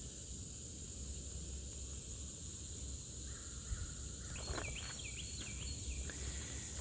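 Steady high-pitched chorus of crickets, with a brief run of repeated chirping bird calls in the middle.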